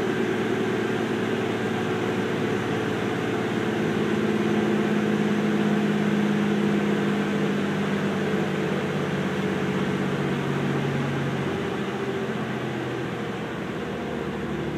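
Cummins ISL 400 hp inline-six turbo diesel pulling under full load on a chassis dyno, its pitch falling slowly as the engine speed is swept down from about 2,300 to about 1,600 rpm.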